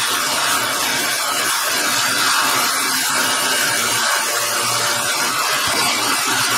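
Small bench belt sander running, with a hammerhead held against its 80-grit belt: a steady grinding over the motor's hum.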